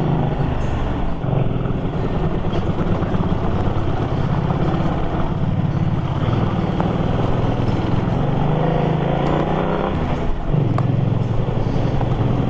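Cruiser motorcycle's engine running while riding, heard from the rider's seat; the engine note drops briefly about ten seconds in, then picks up again.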